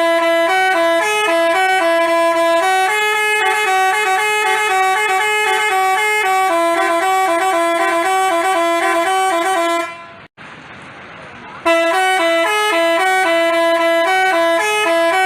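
Telolet basuri multi-tone bus horn playing a rapid stepped melody of held notes. About ten seconds in it breaks off for under two seconds of quieter hiss, then the melody resumes.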